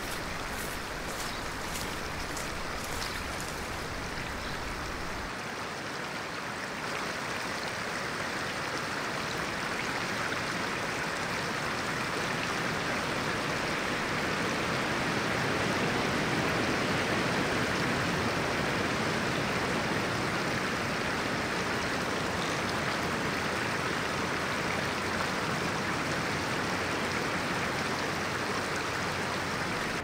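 Shallow rocky forest stream running over stones: a steady rush of flowing water that swells a little about halfway through.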